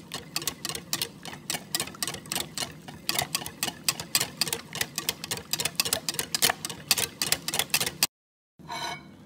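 Wire balloon whisk beating a thin gram-flour batter in a bowl, its wires clicking against the bowl's side in a rapid, even rhythm of about five or six clicks a second. The clicking stops abruptly about eight seconds in.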